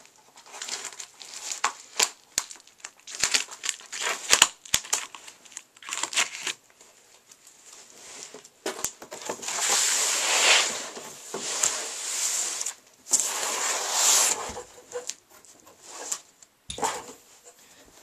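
Scissors snipping and tearing through a cardboard box in a run of irregular crackles, then, from about nine seconds in, a long scraping rustle as the hockey shooting pad is slid out of the cardboard, with a few knocks near the end.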